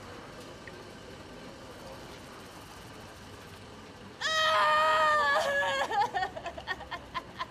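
A woman bursting into a loud, long wail about four seconds in, held for about a second and a half, then breaking into short, choking sobs.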